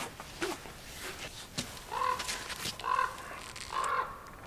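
Three short calls of a crow-family bird, about a second apart, after a few clicks and crunches of a brown bear chewing on a moose carcass.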